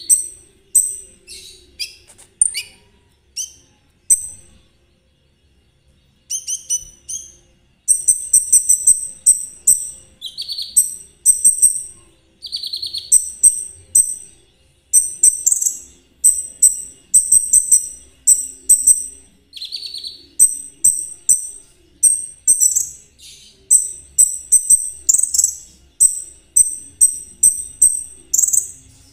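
A konin songbird singing a fast, high-pitched chattering song of short repeated chirps in rapid phrases. The song pauses briefly about four seconds in, then runs on almost without a break.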